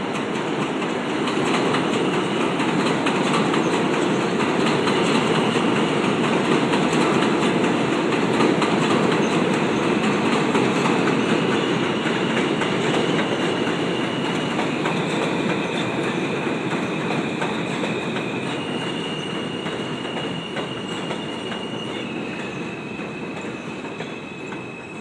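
New York City subway train running past with a loud, steady rumble and rattling of wheels over the rails. A high-pitched wheel squeal rides on top and shifts pitch in steps several times. The rumble builds for the first several seconds, then slowly fades toward the end.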